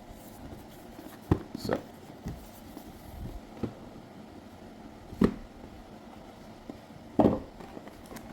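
Hands handling a hair trimmer's box: a few sharp knocks and taps of the packaging, the loudest two near the end, as it is opened.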